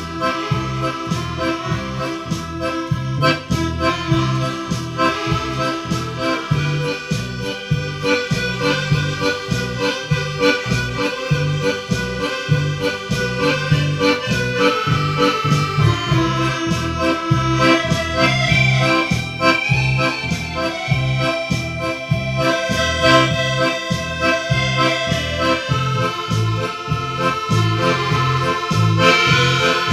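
Background music led by an accordion, with a steady bass beat.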